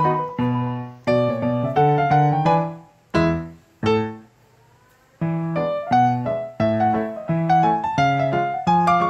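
Background piano music: a light melody of struck, quickly decaying notes, pausing for about a second near the middle before it resumes.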